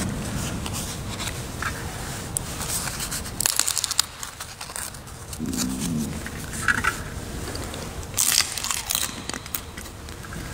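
Close-miked rustling, crinkling and clicking handling noises at the altar, with crackly bursts about three and a half seconds in and again near eight and a half seconds.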